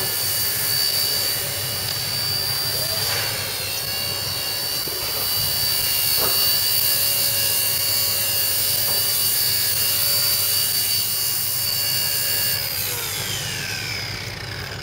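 WLToys V931 AS350 RC helicopter's electric motors and three-blade rotor whining steadily in flight. Near the end the whine falls in pitch as the rotor spools down once the helicopter is on the ground.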